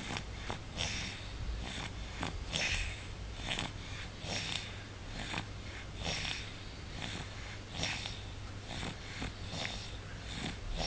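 A sleeping pet snoring: a louder snoring breath roughly every two seconds, with short snuffles and snorts in between.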